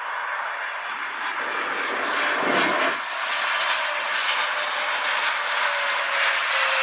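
Jet aircraft passing overhead, its engine noise building and staying loud, with a whine that slides slowly down in pitch in the second half. A brief gust of wind buffets the microphone about two and a half seconds in.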